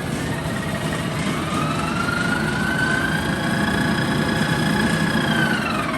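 Clausing 8540 horizontal milling machine running under power. Its whine rises in pitch as the variable speed control is turned up, holds steady, then falls near the end as the speed comes back down.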